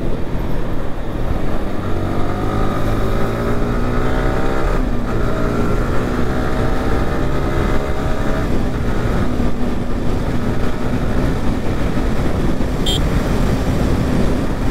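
Yamaha R15 motorcycle's single-cylinder engine accelerating, its pitch rising, dropping with an upshift about five seconds in, then climbing again before holding a steady cruising note, over a steady rushing road and wind noise. Two short high chirps sound near the end.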